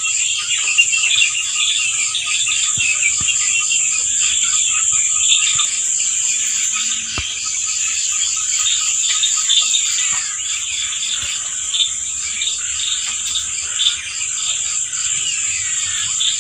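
Night chorus of insects: a steady high-pitched trill with a fast, even chirping pulse beneath it, and short chirps scattered through.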